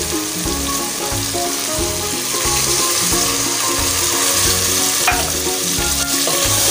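Potato pieces and spices sizzling in hot oil in a pot while a wooden spoon stirs them; partway through, water is poured in over the sizzling masala.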